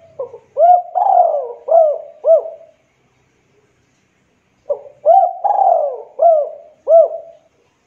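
Javanese spotted dove cooing: two phrases about two seconds apart, each a run of short rising-and-falling coos with one longer, falling coo in the middle.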